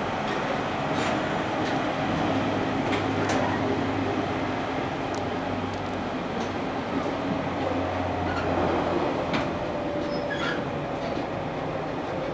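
Inside a JR Kyushu 813 series 200 subseries electric train: steady rolling noise with the Toshiba GTO inverter's whine, which falls slowly in pitch in the second half as the train slows for a station. A few sharp clicks cut through the rumble.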